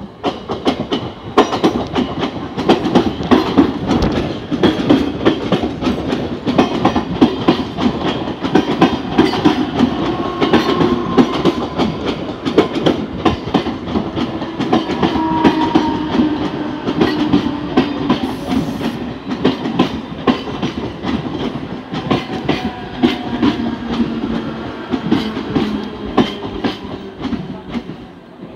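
Siemens EMU suburban electric train running past close by while braking: wheels clacking over the rail joints, with the traction motors' whine sliding slowly down in pitch as it slows. The sound fades near the end as the last coach goes by.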